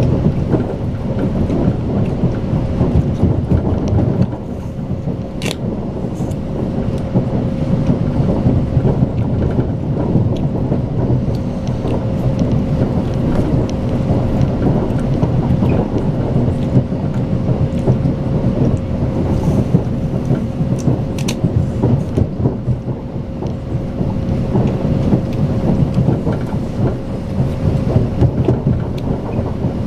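Steady low running rumble of a Strizh Talgo passenger train heard inside the carriage, with a constant steady tone above it and a few faint clicks.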